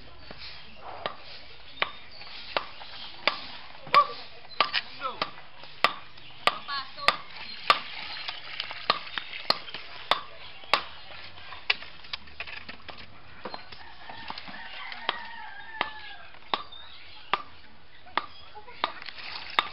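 Irregular sharp knocks and taps, about one or two a second. About fourteen seconds in, a rooster crows faintly.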